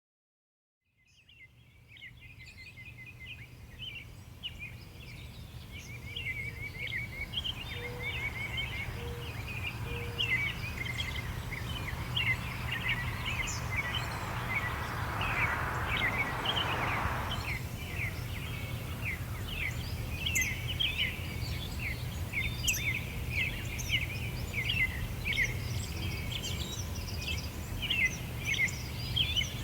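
Many small birds chirping and twittering in a busy chorus over a steady low rumble. It fades in after about a second of silence, and a brief rushing swell rises and dies away around the middle.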